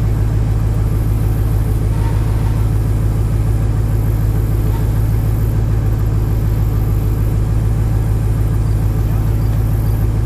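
Pickup truck engine idling: a steady low rumble that holds level throughout.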